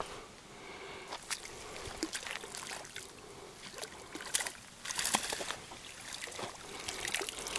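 Hooked tench splashing at the surface as it is drawn in and scooped into a landing net: irregular sloshes and splashes of water, the loudest about five seconds in.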